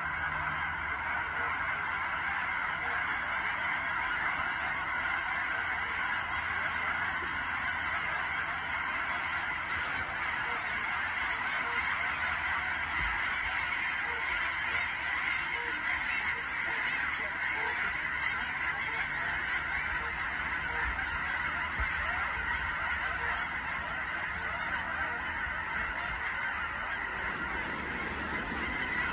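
A huge mixed flock of geese and swans (cackling, Canada and snow geese with trumpeter swans) honking all at once, a dense, steady din of overlapping calls with no single call standing out.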